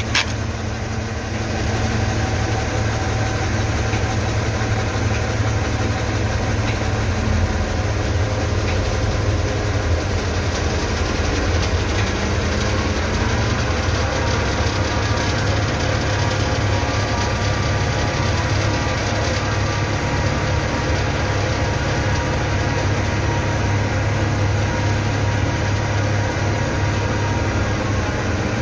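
Crane truck's engine running steadily with a low, even hum while it holds a portable cabin suspended on chains.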